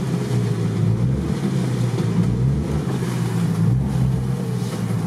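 Off-road vehicle's engine running steadily, heard from inside the cab, with a low wavering hum and some wind-like hiss.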